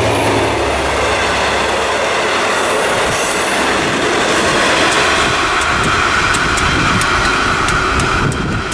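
V/Line N-class diesel-electric locomotive and its passenger carriages passing at speed. The locomotive's low engine hum fades within the first second, then the carriages rush by with a run of wheel clicks over rail joints and a steady high whine from the wheels. The noise drops as the train recedes near the end.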